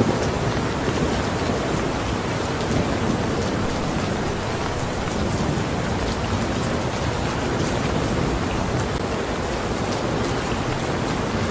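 Steady rain falling, an even hiss with the faint ticks of individual drops.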